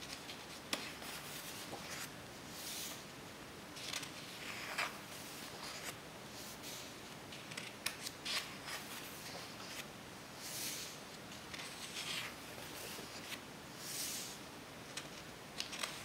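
Pages of a large photo book being turned by hand: several short papery swishes and rustles, with light clicks and taps of fingers on the paper between them.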